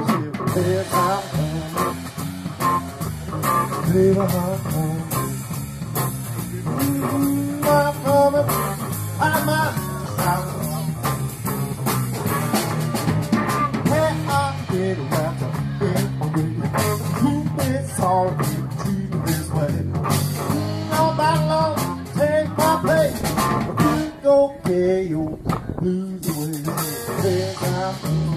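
Live band playing: electric guitars through amplifiers and a drum kit, with a man singing.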